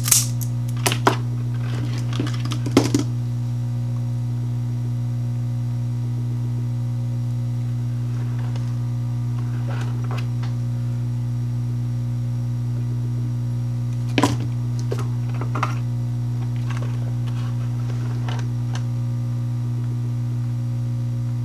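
Loud steady electrical mains hum, with scattered light clicks and taps from handling wires and small tools: a few near the start, a cluster about fourteen seconds in, and more near the end.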